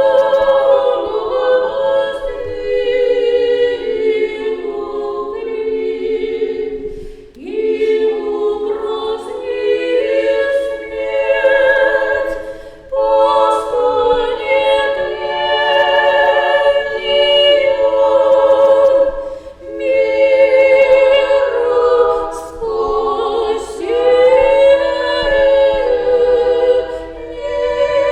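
Russian Orthodox church choir singing unaccompanied chant in several voices, in sustained phrases broken by short breaths.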